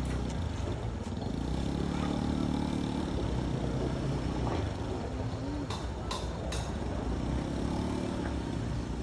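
A bus engine labouring as the bus climbs a muddy dirt slope, with a motorcycle engine running close by. The engine pitch rises and falls a few times, and a few sharp clicks come a little past halfway.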